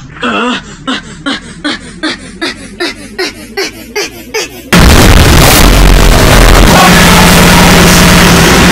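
A short voice snippet looped in a stutter, each repeat coming faster and higher-pitched. About four and a half seconds in, a sudden, extremely loud and distorted blast cuts in and keeps going.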